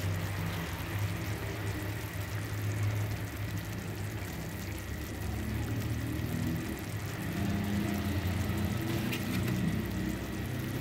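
Clay tagine of kefta and potatoes in sauce simmering on the stove, over a steady low rumble.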